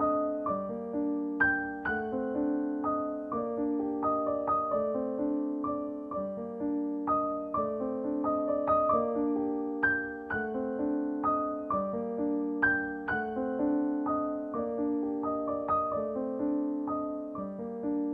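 Gentle background piano music: single notes and chords struck in a steady, repeating pattern, each note ringing and fading.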